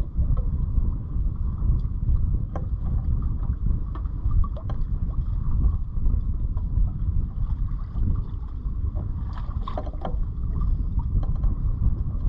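Wind buffeting the microphone aboard a sailboat under sail, a steady, gusty low rumble, with scattered short clicks and knocks, a cluster of them about ten seconds in.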